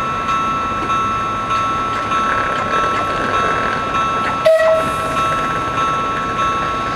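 Level-crossing warning bells ringing steadily, a repeating electronic ring pulsing about twice a second, which means the crossing is closed for an approaching train. A sudden click with a short lower tone breaks in about four and a half seconds in.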